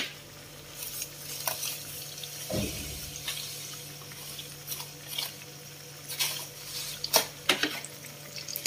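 Sugar poured from a plastic container into a stainless steel pot of milk, with light taps and clinks of container and pot scattered through, over a faint low steady hum.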